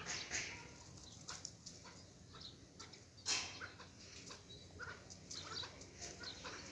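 Young chukar partridges calling in short, scattered chirps, with one louder, sharper sound about three seconds in.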